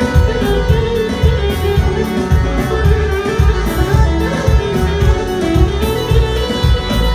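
A live wedding band playing an instrumental passage of Albanian folk music between sung verses: a wandering melody over a steady, heavy drum beat.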